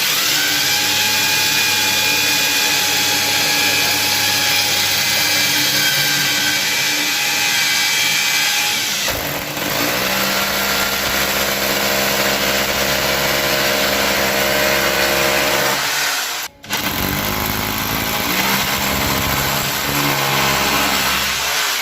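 Electric hammer drill running with a carbide-tipped masonry bit, drilling a hole in concrete. The motor's note changes about nine seconds in, and the drill stops for a moment about two-thirds of the way through, then starts again.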